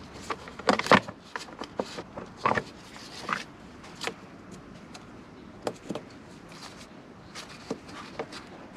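Scattered, irregular clicks and knocks over a low steady background hiss, with the sharpest knock near the end.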